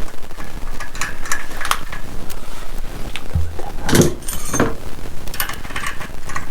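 Metal hand tools and small parts clinking and tapping against each other while a motorcycle is taken apart, with a low thud about three and a half seconds in.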